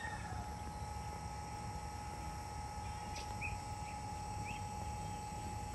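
Steady hum of a submersible pump running in a shallow fish pond, pumping the water down, over a low rumble. Three short bird chirps come a little past the middle.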